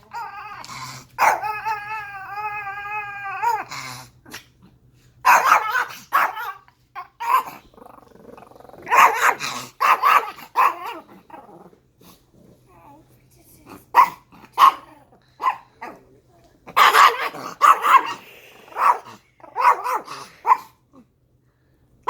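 A dog barking and growling in repeated bursts, as in rough play, with a long wavering vocal cry about a second in.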